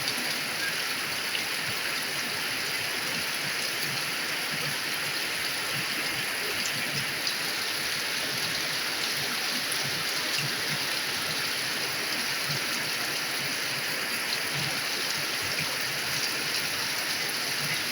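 Steady pouring rain falling on tree leaves: an even hiss with scattered small drop ticks.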